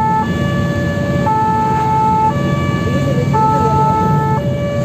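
Fire engine's two-tone siren switching between a high note and a low note about once a second, over the rumble of the truck's engine and tyres, heard from inside the cab.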